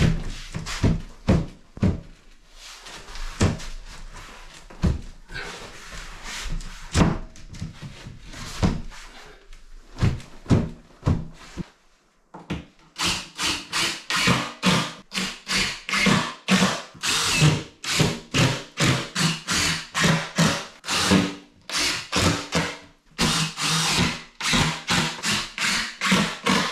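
Scattered knocks and thumps as a ceiling panel is lifted and fitted. From about halfway, a cordless drill-driver runs in many short bursts, a few a second, driving screws through the panel into the wooden battens.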